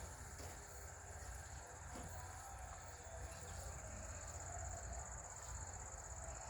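Insects chirring steadily at a high pitch over a faint low rumble.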